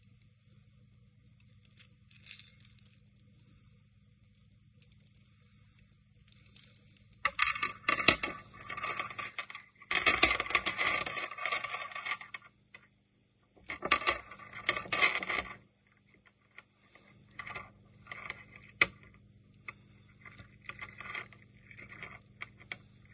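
Apatite beads of a necklace clicking and rattling against each other and against the small metal clasp as they are handled. Scattered light ticks come first, then two spells of dense rattling about a third of the way in, then sparser clicks.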